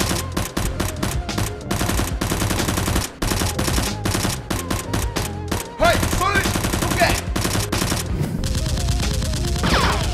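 Bursts of rapid automatic gunfire, a sound effect dubbed over the Nerf shootout, with a brief break about three seconds in and a few whizzing glides about six seconds in and near the end.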